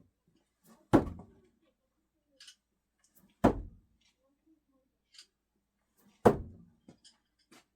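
Screwdrivers thrown no-spin striking the throwing target: three sharp impacts about two and a half seconds apart, each ringing out briefly.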